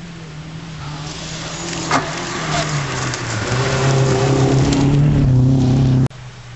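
Rally car engine approaching on a gravel stage, growing steadily louder, its pitch stepping up and down as the driver works the throttle and gears. A single sharp crack about two seconds in, and the sound cuts off suddenly near the end.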